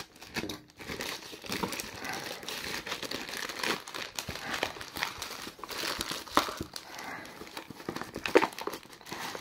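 Grey plastic poly mailer bag crinkling and rustling as it is pulled open by hand, and a small cardboard box wrapped in black plastic is slid out. A few sharper crackles stand out, the loudest near the end.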